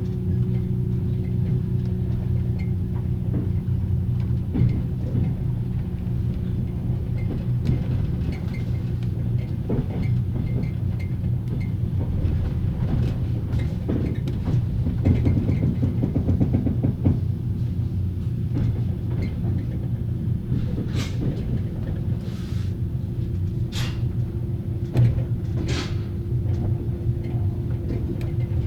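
Inside a passenger railway car's compartment at low speed under braking: a steady low rumble of the running gear with the whine of the car's axle-driven generator. The whine drops away a few seconds in and returns near the end, and several sharp knocks from the car and wheels come about two thirds of the way through.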